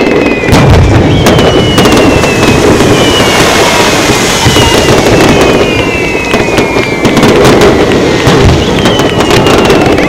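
Aerial fireworks shells bursting in quick, overlapping succession, with crackling throughout. Several high whistles fall slowly in pitch over the bursts.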